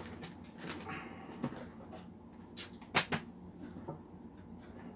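Cardboard product boxes being handled and set on a table: a few light knocks and rustles, the clearest around three seconds in.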